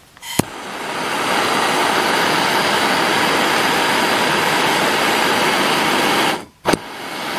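A click, then a handheld gas blowtorch burning with a steady hiss, heating a brass fitting to solder a copper tube into it. The flame noise swells over the first second, holds for about five seconds and cuts off suddenly, followed by another click.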